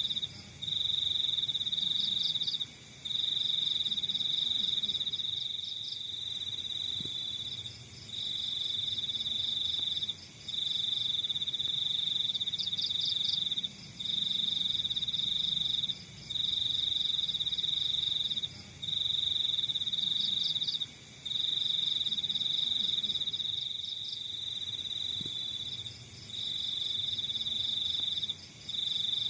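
Crickets trilling. One loud, high trill comes in stretches of about two seconds, each broken off by a brief pause, with fainter quick chirping just above it.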